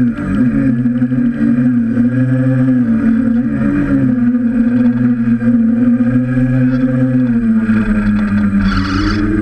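Motors and propellers of a DJI F550 hexacopter running steadily in flight, heard from on board as a continuous whine with a slight waver. The pitch sags a little about seven seconds in and rises again near the end as the copter climbs.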